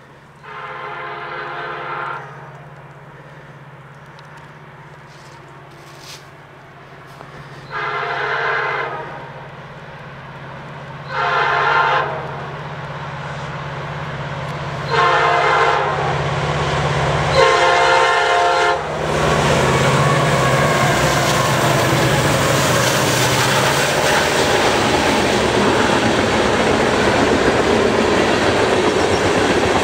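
A freight train's lead diesel locomotive sounds its multi-tone air horn in five separate blasts over the first nineteen seconds, each about one to two seconds long. Then the train reaches the microphone, and the locomotives and a string of loaded freight cars roll past with a loud, steady rumble and clatter of wheels on rail.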